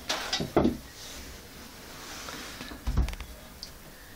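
Several short knocks and clatters in the first second, a soft rustle, then a duller thump about three seconds in: light bumps and handling noise at a wooden baking table.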